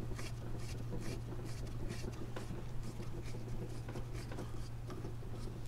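Plastic adjustment knob on a pressure washer unloader valve being unscrewed by hand: a run of faint, irregular scratchy ticks from the threads and the gripping hand, over a steady low hum.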